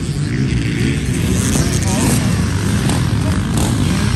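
Several dirt bike engines running together, loud and steady, their pitches overlapping and wavering.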